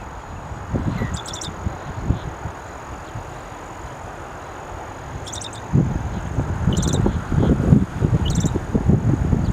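Loggerhead shrike giving four short, harsh calls a few seconds apart, over a steady high tone and a low rumbling noise that grows louder from about six seconds in.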